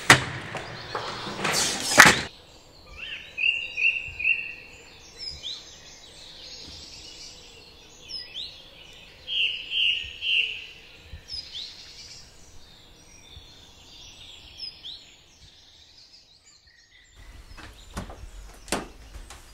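A door pushed open with a clunk of its handle at the start, then woodland birdsong: many short chirps and trills from several small birds over a faint outdoor background, and a few sharp knocks near the end.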